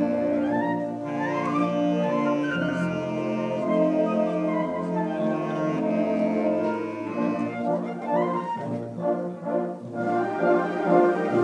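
Instrumental band music led by brass: held chords with a few sliding notes, turning to short, detached notes in the last few seconds.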